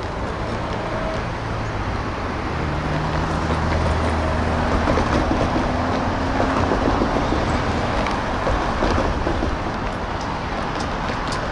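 Vehicle passing close by: a steady wash of traffic noise with a low motor hum that rises in pitch as it accelerates, loudest in the middle, with some wind on the microphone.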